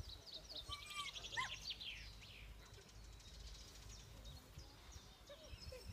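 Faint outdoor ambience: small birds chirping and twittering, with a few short whistled notes in the first couple of seconds, over a low rumble.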